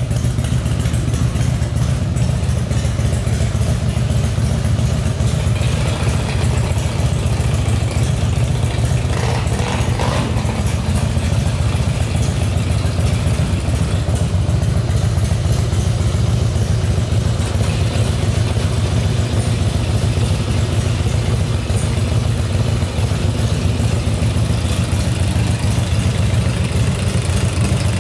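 Harley-Davidson Night Train 1450's air-cooled V-twin engine idling steadily.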